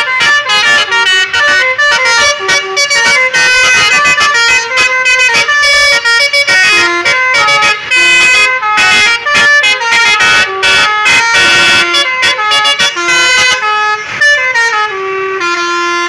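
A bus's DAV basuri telolet air horn playing a fast tune of many short notes, ending in a falling run of notes near the end.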